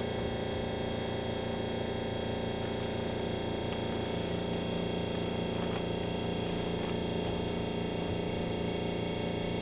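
Steady hum inside a Keihan 3000 series electric train car, several fixed tones that hold their pitch, as of the train standing at a station with its onboard equipment running.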